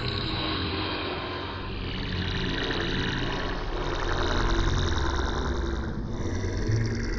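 Buzzing drone sound effect: a steady, layered hum of many tones over a low rumble. It swells a little louder about four seconds in and dips briefly near six seconds.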